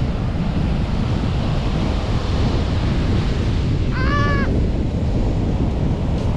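Strong storm wind buffeting the microphone over rough Baltic Sea surf breaking on the beach, a steady loud rush. A short high call cuts through about four seconds in.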